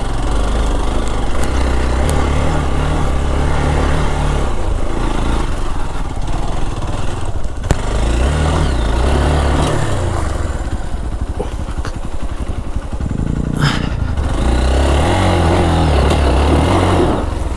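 Hero XPulse 200 4V's single-cylinder engine pulling on an off-road trail, the revs rising and falling with the throttle. Two sharp knocks, about eight and fourteen seconds in.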